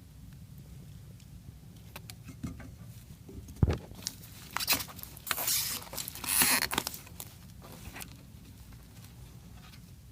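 Close handling noises: scattered clicks, a sharp knock about 3.7 s in, then rustling and scraping for a few seconds, over a steady low hum.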